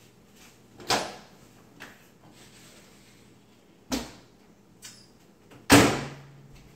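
Handling knocks as a biscuit sandwich is picked up off a paper plate and held up: three loud knocks, about a second in, near four seconds and near six seconds, the last the loudest, with a couple of faint taps between.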